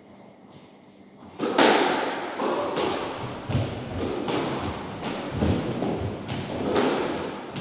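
Squash rally: the ball cracking off rackets and the court walls in quick succession, about two to three sharp strikes a second with a short ring in the court, and a few deeper thuds among them. The play starts about a second and a half in.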